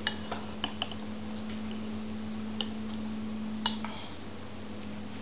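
Metal spoon clinking and scraping against a porcelain cereal bowl: four light clicks in the first second, then a few more between about two and a half and four seconds in, over a steady low hum.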